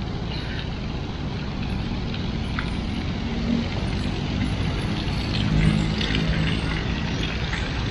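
Steady rumble of road traffic, with a low hum.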